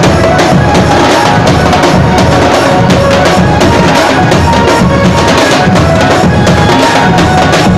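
Loud music driven by fast, dense drumming, with a melody line over it.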